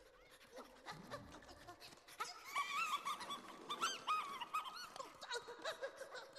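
Cartoon squirrels giggling in high-pitched squeaks, a quick run of short chirping squeals that is thickest from about two seconds in until about five: the giggling of animals that have breathed laughing gas.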